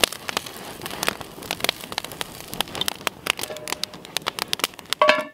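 Biscuit dough sizzling and crackling in a preheated cast iron pan over campfire coals, a dense run of irregular pops and ticks. Near the end there is a short ringing clank as the cast iron lid goes onto the pan.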